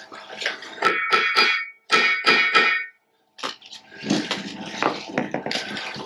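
Metal clanking during a machine teardown. About four sharp strikes on steel parts ring briefly in the first half, followed by a denser run of rattling and scraping.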